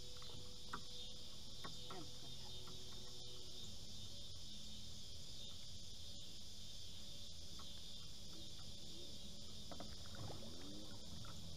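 Evening insect chorus: crickets' steady high-pitched trill runs throughout, with a few faint brief calls near the start and again about ten seconds in.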